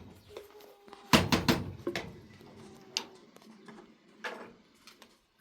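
A series of knocks and clatters from objects being handled. The loudest cluster comes about a second in, followed by a few single knocks spaced about a second apart.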